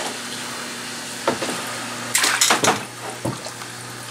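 Dip net sweeping through a fish tank, water splashing in a short burst about a second in and a louder cluster of splashes around two seconds in, over a steady low hum.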